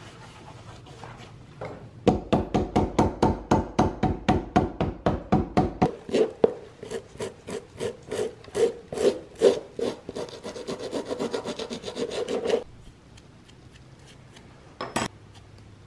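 Hand wire brush scrubbing old cork filler off a shoe's bottom in quick back-and-forth strokes, about four a second, which stop about two-thirds of the way through. A single short knock follows near the end.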